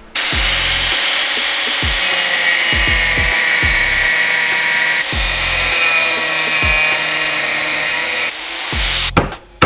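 Angle grinder with a thin cut-off disc cutting into steel angle iron: a steady, high grinding whine that starts abruptly and stops about eight seconds in.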